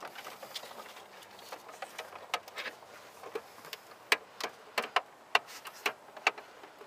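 Plastic connectors and wiring harnesses clicking and rattling as hands work behind a truck's dash, plugging a power adapter lead into the cigarette lighter's wiring plug. The sharp clicks are scattered at first and come thicker in the second half.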